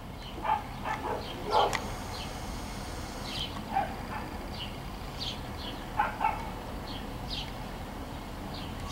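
A dog barking repeatedly, short barks often in pairs with irregular gaps between them, over a steady low background hum.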